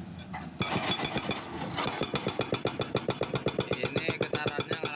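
Hydraulic breaker on a CAT 320C excavator starts hammering concrete about half a second in, a fast, even run of blows at about seven a second, over the excavator's running diesel engine.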